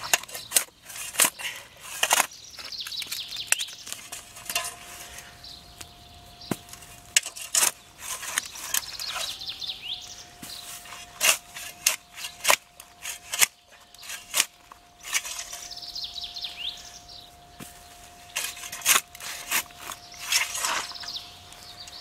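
Steel spade blade chopping and scraping into lawn turf and soil, cutting out squares of sod: a string of sharp cuts and scrapes at irregular intervals. Birds sing faintly now and then.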